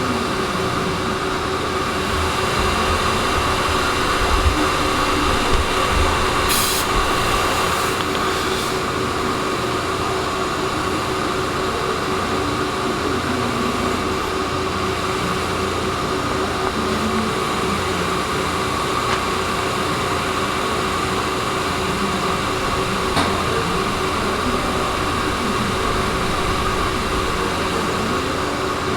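Metalworking shop machinery running steadily, a continuous mechanical drone with a steady whine over a low rumble. A few short high hisses come around seven to eight and a half seconds in.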